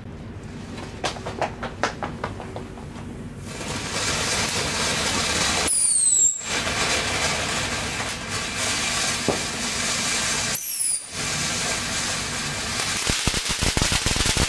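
Fountain firework spraying sparks: after a few faint clicks it breaks into a loud, steady hiss a few seconds in. Twice a short falling whistle cuts through, and the hiss turns crackly near the end.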